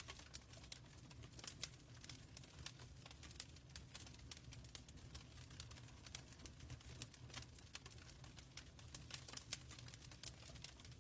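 Wood fire in a fireplace crackling faintly: irregular pops and snaps over a steady low rumble.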